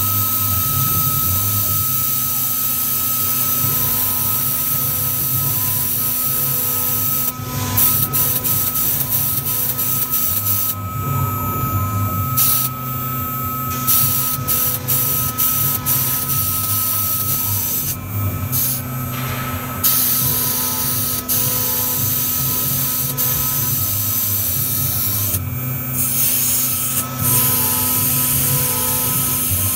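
1325 CNC router's spindle running with a steady whine while its engraving bit cuts lettering into a board. The high cutting hiss stops and starts again many times.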